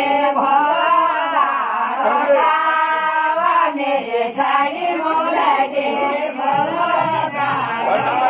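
A group of women singing a Kumaoni jhoda-chachari folk song in chorus, many voices together in one unbroken line.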